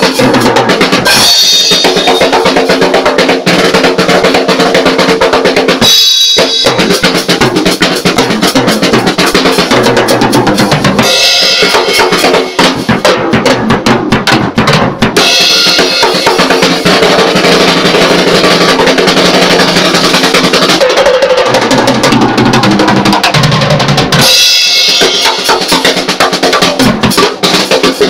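Acoustic drum kit played fast and busy: bass drum, snare, toms and cymbals in dense patterns. Three times, about six, eleven and twenty-four seconds in, the low drums drop out briefly and only the cymbals ring.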